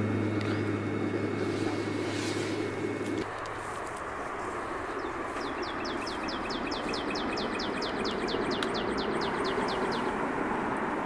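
Steady rushing of a wood-gasifier camp stove's flames, with a low hum that stops about three seconds in. From about five seconds in, a rapid trill of short, high, falling chirps, about five a second, runs for about five seconds.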